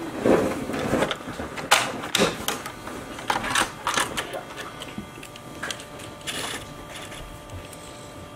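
Plastic toy hauler truck and toy race car being handled on a tabletop: scattered clicks, knocks and rattles as the trailer's rear ramp is opened and the small race car is slid out. The handling is busiest in the first half and thins out toward the end.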